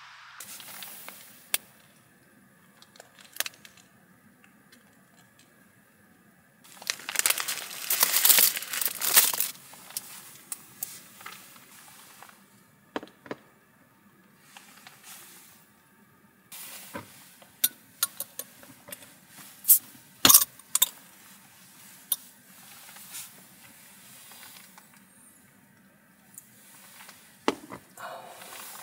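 Close handling of a glass beer bottle on a wooden table, with sharp clinks and knocks, a few seconds of dense rustling about a quarter of the way in, and the crown cap being opened.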